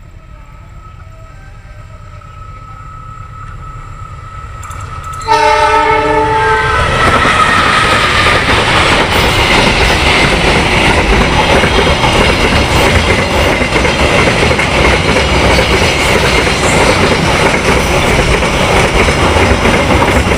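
A train passing close by. Its low rumble grows for about five seconds, then the locomotive horn blasts loudly for about a second and a half. After that comes the loud, steady noise of the train going by.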